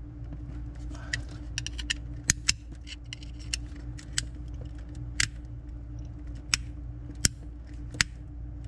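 Sharp, irregular clicks as a screwdriver works the slide of a Corvette steering-column ignition switch box, testing whether it switches; the owner concludes the box is faulty. The clicks come in a quick cluster early, then about one a second, over a steady low hum.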